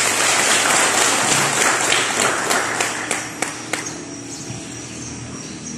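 Audience applauding. The clapping thins out after about three seconds into a few last separate claps.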